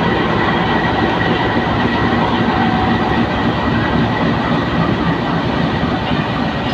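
GE U20C (GEU-20) diesel-electric locomotive's engine running loudly and steadily as it pulls a train out of the station at walking pace.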